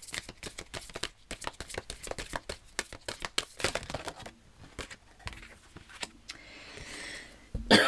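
A deck of large divination cards being shuffled by hand: a rapid patter of card clicks for about four seconds, then a softer rustle as a card is drawn and laid on the table.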